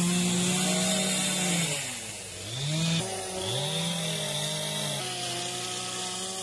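Petrol chainsaws running at a steady high speed while carving wood. Around the middle the engine pitch drops and climbs back up twice.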